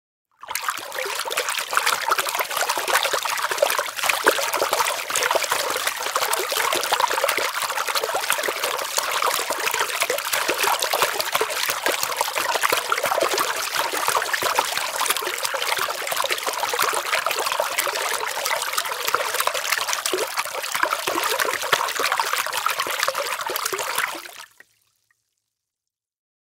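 Steady trickling sound of running water, starting abruptly just after the start and fading out a couple of seconds before the end.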